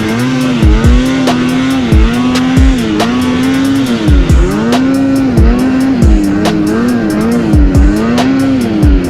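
Background music: an electronic beat with deep kick drums that drop in pitch, quick hi-hat ticks and a sliding synth or bass line.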